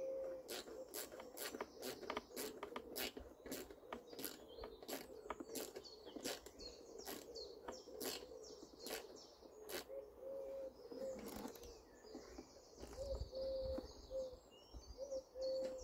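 A hand tool clicking steadily, about twice a second for the first ten seconds or so, while a fixing is worked on. Birds sing throughout, and a pigeon coos in short repeated notes.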